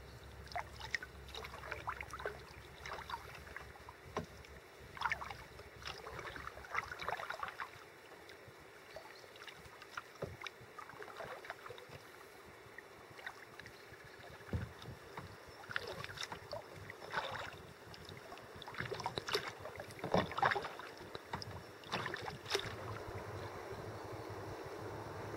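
Kayak paddle strokes in calm lake water: irregular splashes and trickling as the blades dip in and come out, louder in the second half.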